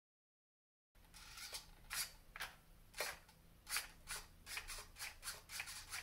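A string of light, irregular clicks and rubs from small objects being handled, over a faint steady low hum.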